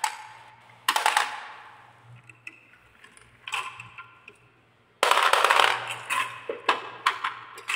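Marbles clinking. A sharp clatter about a second in as a marble drops into a toy dump truck's bed full of red marbles, a few light ticks, then from about five seconds in a dense rattle of marbles shifting in the bed as the truck is moved by hand.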